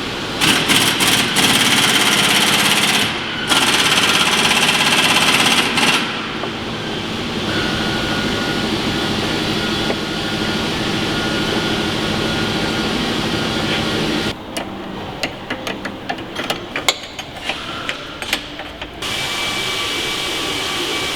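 Power wrench running in bursts while bolts are driven home on reassembled front suspension parts, followed by scattered metallic clicks and knocks of tools and parts being handled.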